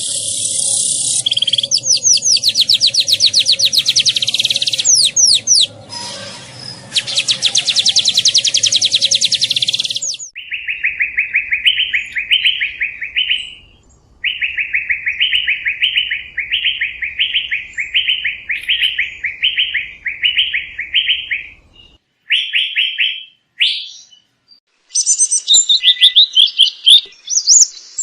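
Songbirds singing loudly: fast, dense trills of high sweeping notes for the first ten seconds or so, then a steady series of repeated, evenly spaced whistled notes, and near the end a burst of varied high chirps. The sections change abruptly, as from separate recordings joined together.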